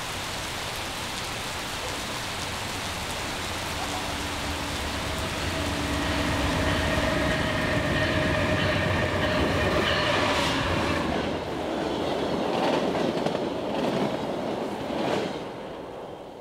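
Diesel-hauled VIA Rail passenger train approaching and passing through a station in heavy rain, with engine drone and a steady whine building as it nears. Its wheels then clack over rail joints for several seconds as the cars go by, and the sound falls away near the end over the hiss of rain.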